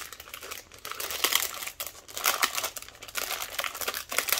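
Clear plastic bag crinkling in the hands, in irregular crackles, as it is opened and its papers are slid out.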